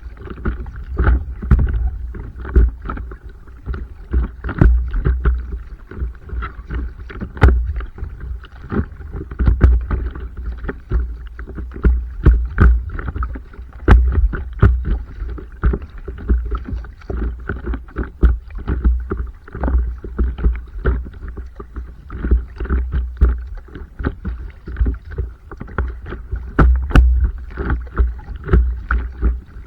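Water sloshing and slapping against a stand-up paddleboard as it is paddled, with many irregular knocks and clicks. A heavy low rumble runs underneath throughout.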